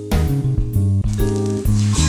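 Instrumental background music with a bass line and drum beat.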